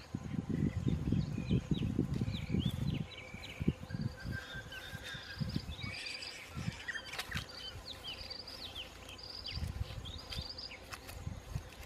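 Small birds chirping throughout, with many short calls that rise and fall in pitch. Low thumps and rustling, like footsteps in grass, come through the first three seconds and again near the end.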